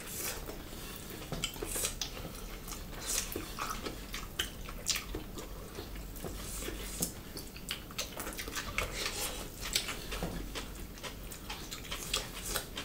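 Close-up eating sounds of two people eating rice and mushrooms by hand: irregular soft clicks of chewing and lip smacking, mixed with fingers working the food against the plates.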